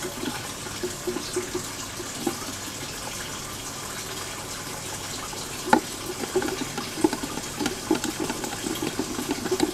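Small clicks and scraping ticks of a screwdriver turning a small screw that fixes a metal camera bracket, with one sharper click partway through and a quicker run of ticks near the end. A steady hiss like running water sounds underneath.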